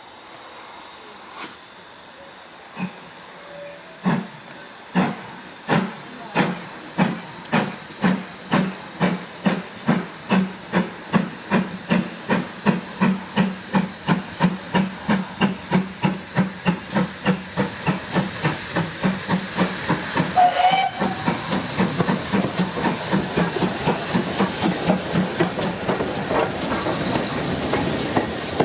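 GWR Manor-class 4-6-0 steam locomotive 7820 Dinmore Manor starting away under steam, its exhaust beats slow at first and quickening to about two and a half a second. A brief whistle note sounds about two-thirds of the way through, and after it a hiss of steam grows under the beats.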